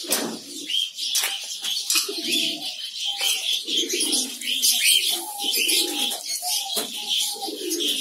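Chorus of caged birds in a cockatiel aviary: many short high chirps and whistles over repeated lower warbling calls. A sharp knock comes right at the start as the metal mesh gate is handled.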